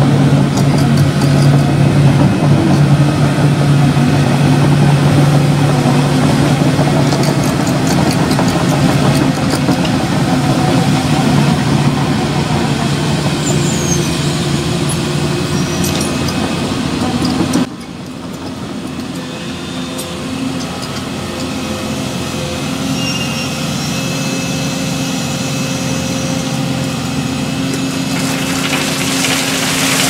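Volvo tracked excavator's diesel engine running steadily with a faint hydraulic whine. About two-thirds through the engine drops abruptly to a lower, quieter note, and a rushing hiss builds near the end.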